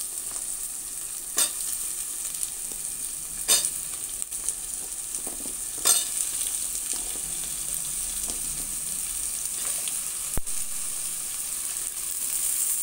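Oil sizzling steadily in a stainless steel pot of sautéing onions and tomatoes as cut vegetables are dropped in, with a few sharp clatters as pieces land in the pot, roughly every two seconds in the first half.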